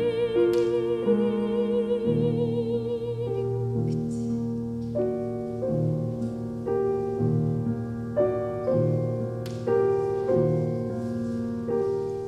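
Soprano and piano in a classical art song: the soprano's held note with vibrato ends about three seconds in, and the piano goes on alone with the closing chords, struck about once a second.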